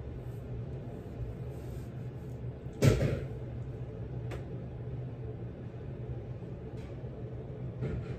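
Steady low room hum with one sharp knock about three seconds in, followed by a few faint clicks.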